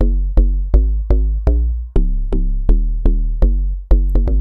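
Deep house FM-style synth bass from the Serum plugin, playing a repeating pattern of short, punchy notes, about three a second, each with a sharp click at the start and a deep sub underneath that dies away quickly under an LFO-shaped volume envelope.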